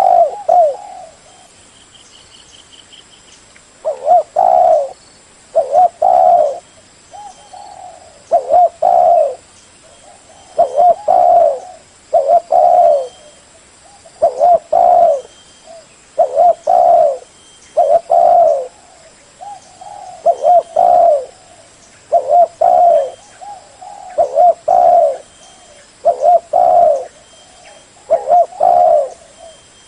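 Spotted dove cooing: a short phrase of several low coos, repeated about every two seconds.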